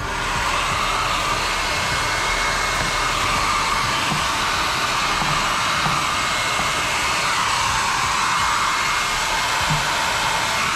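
Hair dryer running steadily, a constant whoosh of blown air, heating a vinyl decal so it softens and shrinks onto the dirt bike's plastic.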